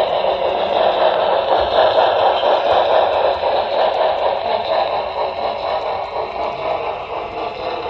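Model train running along the track, heard from a camera riding on it: a steady whirr and rattle of motor and wheels on the rails, easing off slightly in the last few seconds.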